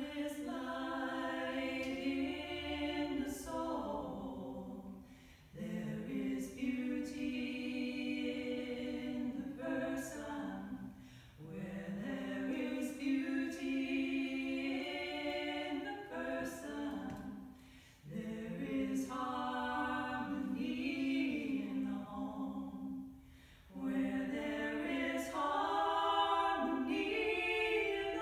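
Two women's voices singing an unaccompanied duet, in sustained phrases of about five or six seconds each, separated by brief pauses for breath.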